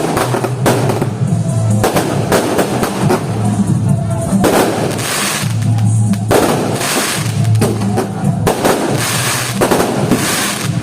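Aerial fireworks going off: a run of sharp bangs and several crackling, hissing bursts about a second long. Loud music with a heavy drum beat plays underneath.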